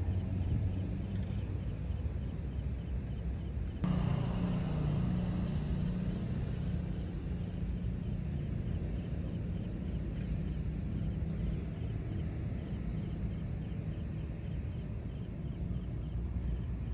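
Steady low rumble of distant road traffic, growing louder about four seconds in, with a faint high steady whine that stops near the end.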